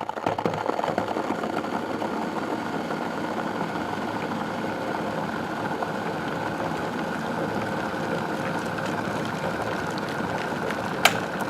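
Steady running noise of a small machine or motor, starting abruptly, with one sharp click near the end.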